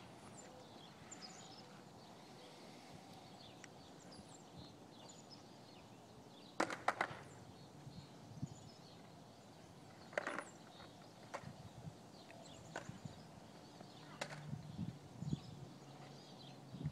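Quiet outdoor ambience broken by a few sharp knocks, a clatter of several about six and a half seconds in and another knock about ten seconds in, with faint high chirps in the background.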